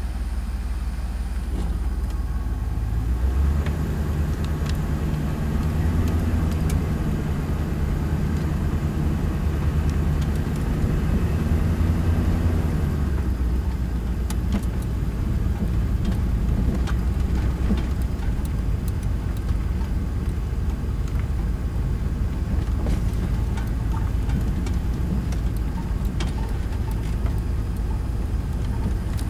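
Toyota motorhome driving slowly, heard from inside the cab: a steady low engine drone that strengthens about three seconds in as it pulls away, with scattered light ticks and rattles over it.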